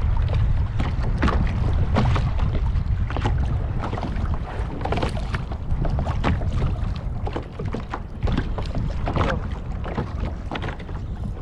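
Wind rumbling on the microphone, with a run of small splashes and slaps of water against a kayak hull. The wind rumble is strongest in the first half and eases later.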